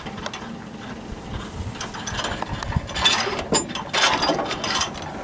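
Lewis chainsaw winch's drum and release mechanism being worked by hand: metal clicking and ratcheting, coming in quick runs that grow loudest from about three to four and a half seconds in.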